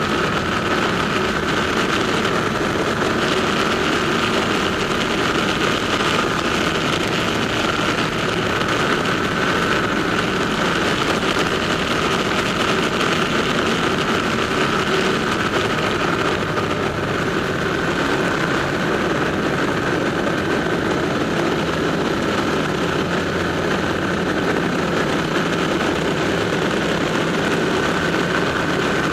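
Ducati motorcycles running at a steady speed through a road tunnel: a continuous engine and road drone that stays even, with no revving or gear changes.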